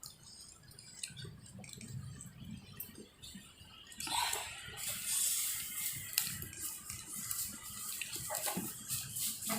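Close-up eating sounds: faint chewing, then from about four seconds in louder wet clicking and smacking over a hiss.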